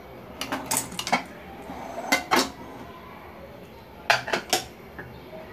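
Stainless steel pressure cooker lid being turned and lifted off once the steam has fully released, metal clinking and clanking against the pot in a few separate clusters of knocks.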